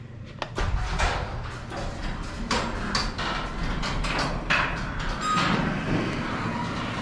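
Genie garage door opener running the sectional door along its track: a steady motor rumble with clattering clicks and rattles from the moving door.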